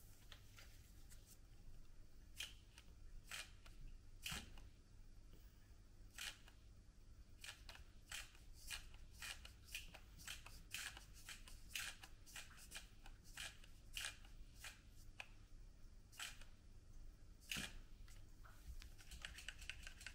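Faint, irregular plastic clicks and ticks as a small RC transmitter is picked up and handled, coming thicker in the middle and again near the end.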